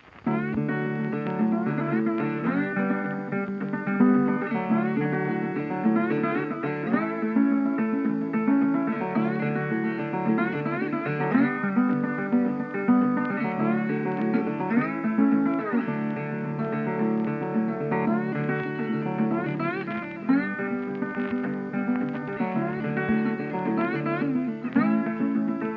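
Background music led by guitar, with sliding notes over a steady strummed accompaniment.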